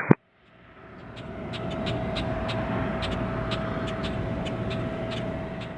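Airport outdoor ambience: a steady mechanical hum with a constant mid-pitched whine, typical of distant jet engines or an aircraft's auxiliary power unit. It fades in over about two seconds and fades out near the end, with faint light ticking on top.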